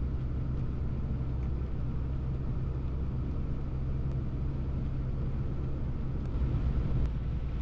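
Truck cab noise while driving on a wet road: a steady low engine drone with tyre hiss, swelling slightly near the end, and a couple of faint ticks.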